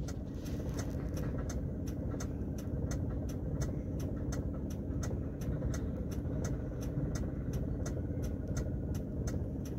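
Low, steady rumble of road traffic and running engines, with a fast, even ticking of about four ticks a second over it.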